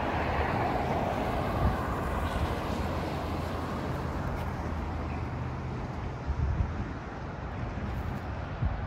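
Road traffic: car tyres hissing past, loudest at the start and then fading, over a low rumble of wind buffeting the microphone with a few bumps in the last few seconds.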